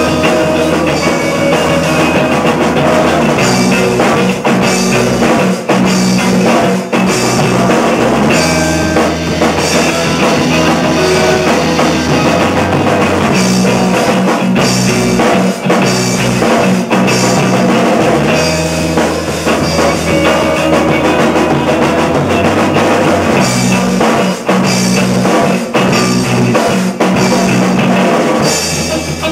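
Live rock band playing: electric guitar and drum kit together, loud, with a steady drum beat.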